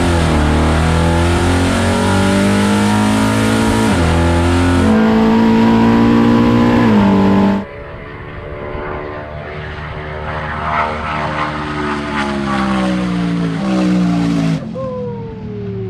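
1969 Camaro's big-block engine at full throttle in a standing-mile run, heard inside the car: its pitch climbs through each gear, with upshifts about four and seven seconds in. About halfway through it gives way to the same car heard from trackside, quieter and farther off, still pulling hard at speed until it stops shortly before the end.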